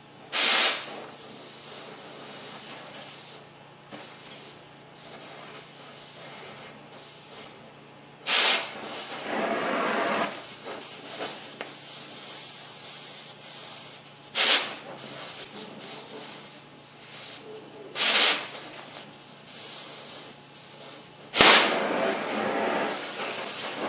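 Oxy-acetylene cutting torch hissing steadily, with five short loud blasts as the cutting oxygen is blipped to burn away a wheel bearing race on the hub a little at a time.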